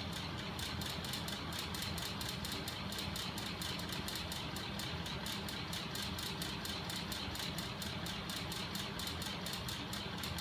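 Homemade magnet-crankshaft mechanism driven by a small 12 V electric motor, running steadily with a rapid, even clatter of its moving parts over a steady motor hum.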